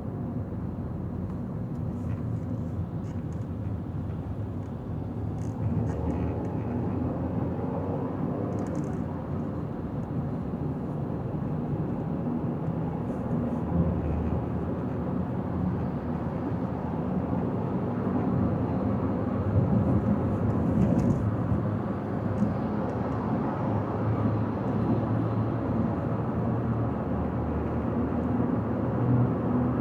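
A car driving at highway speed: steady tyre and engine rumble.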